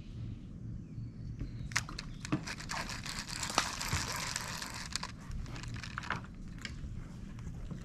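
Crinkling, crackling rustle close to the microphone, with a few sharp clicks, strongest from about two to five seconds in.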